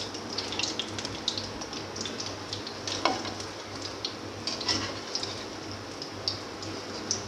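Samosas deep-frying in hot oil in a wok, a steady sizzle with frequent small crackles and pops as the finished, golden samosas are lifted out. A sharp knock sounds about three seconds in.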